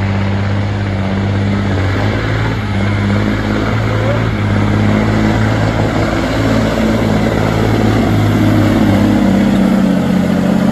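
Hot street semi truck's diesel engine running wide open under heavy load as it drags a weight-transfer sled down a dirt pulling track, a deep steady drone that grows a little louder as the pull goes on.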